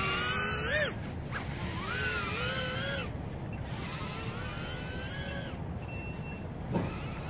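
Micro brushless racing quadcopter flying: the high whine of its brushless motors and three-blade props rises and falls as the throttle changes, dipping sharply about a second in, over steady low background noise.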